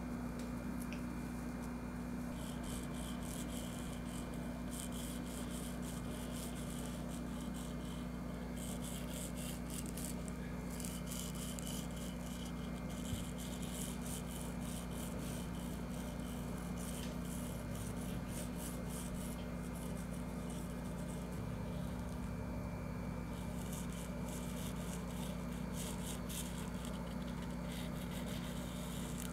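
Faint, intermittent rubbing and scraping of a small glue bottle's nozzle dabbed along the stitched seam of a nylon tent wall, over a steady low hum.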